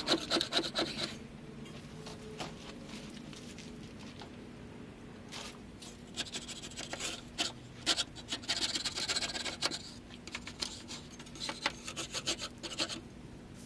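Hand scraping on the underside of a box truck's cargo box: bouts of quick rasping strokes with short pauses between them, a burst near the start and a longer run in the second half.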